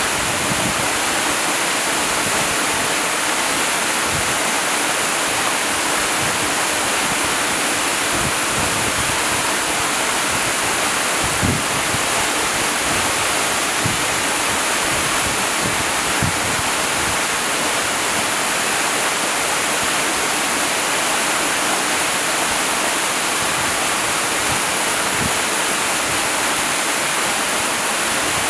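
Waterfall: a steady rush of falling water, with brief low thumps here and there beneath the hiss.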